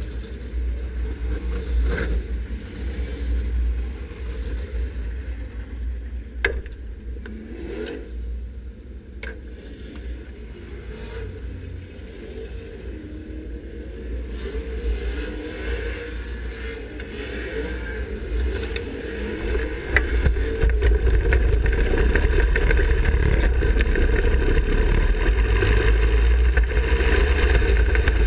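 A 360 sprint car's V8 engine running, heard from an in-car camera, with a heavy low rumble and a few sharp knocks in the first ten seconds. It gets clearly louder about twenty seconds in and stays at that higher level as the car picks up speed.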